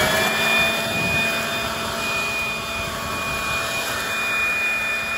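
Handheld leaf blower spinning up at the start, then running steadily with a high whine, blowing burning leaves and grass from the fire edge back onto already-burned ground to put the flames out.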